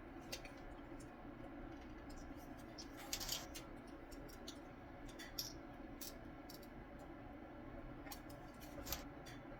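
Scattered light clicks and scrapes of plastic headlight parts from a 2019 Audi headlight being worked by hand as they resist coming apart, with a short burst of clicking about three seconds in and another sharp click near the end, over a steady low hum.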